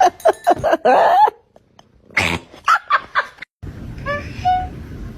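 A cat vocalising in a rapid run of short, pitch-bending calls, silent for about a second, then calling again in a second flurry. After a cut to a different recording, one brief higher call follows near the end.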